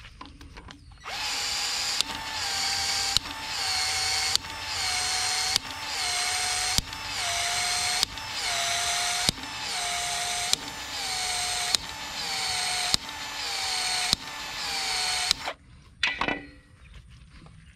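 Powered PEX-A expansion tool expanding a PEX pipe end inside its expansion ring: the motor runs in about a dozen even strokes a little over a second apart, each opening with a click, then stops suddenly.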